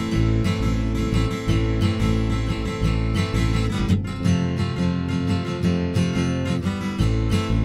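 Song music with a strummed acoustic guitar, steady and without singing.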